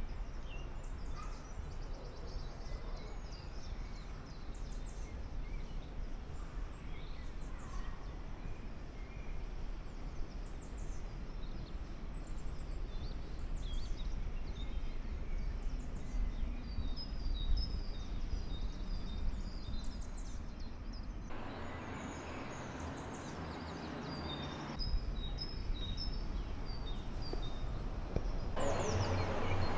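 Songbirds singing and chirping, many short high calls and trills, over a steady low outdoor rumble that grows louder about two-thirds of the way through and again near the end.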